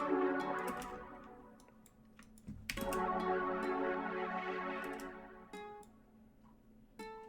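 Ambient trap beat playing back in a music program: layered synth chords with a plucked guitar-style melody, repeatedly stopped and restarted. It fades out about a second in and starts again a little under three seconds in. It fades once more, two short single notes sound, and it starts again near the end. Computer keyboard and mouse clicks are scattered throughout.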